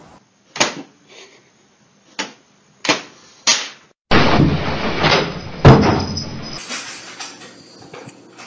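Sharp knocks from a cat colliding with household things: four short knocks in the first half, then a louder rattling stretch with one heavy thud just past the middle, as a cat jumps from a TV set at a glass window.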